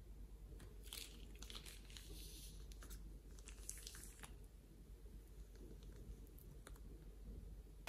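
Faint crinkling of a plastic piping bag and soft sticky crackles from slime as yellow slime is squeezed out and the bag is peeled up from the slime surface, in two clusters in the first half, then a few faint clicks.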